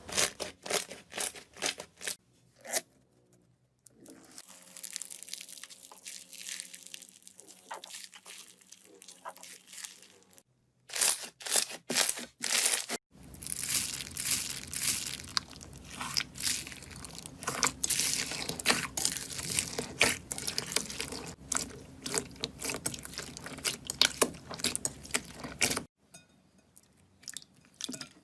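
Hands squeezing, pressing and poking slime, giving dense crackling and popping clicks. The sound changes abruptly every few seconds as one short clip gives way to the next.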